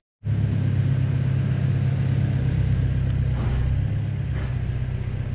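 A motor vehicle's engine running steadily nearby, a loud low hum that cuts in suddenly just after the start and eases off slightly near the end.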